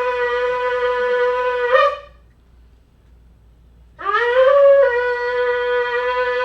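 Shofar sounded in long blasts: one held note ends about two seconds in with an upward break in pitch, and after a short pause a second blast slides up into its note, holds, and ends with the same upward break near the end.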